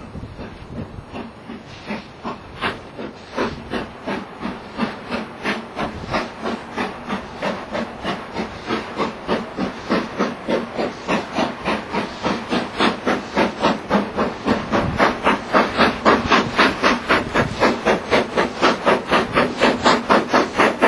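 Steam locomotive working hard as it hauls a train, its exhaust beating out a sharp, even chuff about four times a second. The beats grow steadily louder as it approaches.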